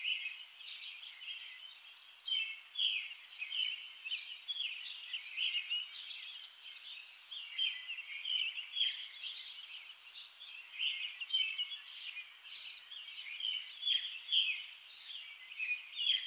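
Small birds chirping and twittering continuously: a dense run of short, high calls overlapping one another.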